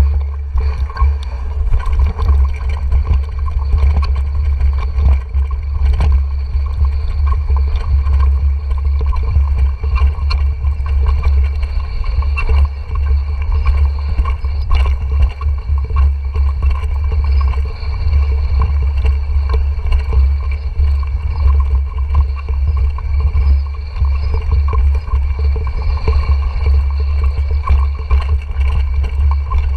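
Mountain bike descending a rough, rocky trail: steady wind rumble on the GoPro Hero 4's microphone, with frequent short rattles and knocks from the bike jolting over the ground.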